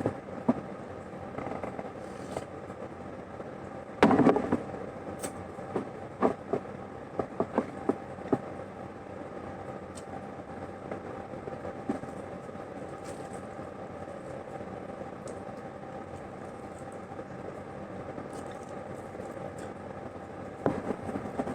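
Eating sounds: scattered crunches and clicks while fried chicken and rice are eaten, with a longer crunch about four seconds in and a run of quick clicks a few seconds later, over a steady background hum.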